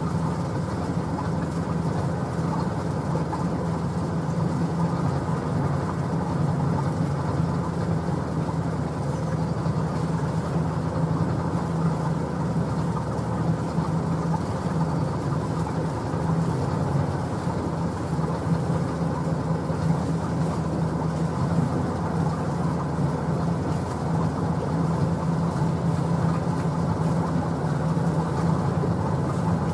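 A small sailing boat's motor running steadily, pushing the boat slowly along.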